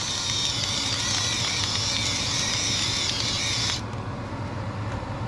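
Electric salt grinder running with a steady motor whir as salt is ground out. It cuts off about three-quarters of the way through.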